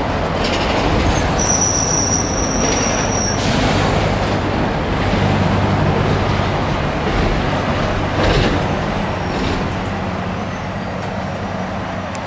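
Road traffic running on the road beneath the viaduct: a steady rumble of engines and tyres, with one vehicle sweeping past about eight seconds in. A thin high whine sounds for about two seconds near the start.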